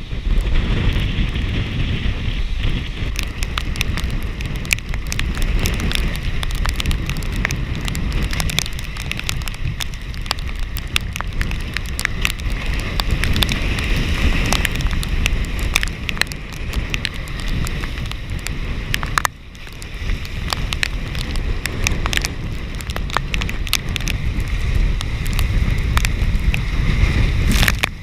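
Hurricane wind gusting on the microphone with a heavy rumble, mixed with rain hiss and many sharp ticks of raindrops; the sound drops out briefly about two-thirds of the way through.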